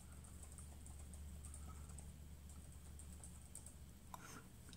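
Near silence: room tone with a steady low hum and faint scattered light ticks, with one slightly louder soft sound about four seconds in.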